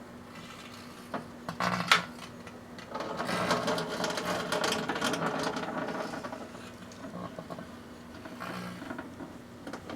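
Microwave oven running with a steady hum while a solar lamp burns inside it. Sharp crackles and a loud pop come about two seconds in, then a louder spell of crackling and hissing from the burning lamp runs for about three seconds before dying down.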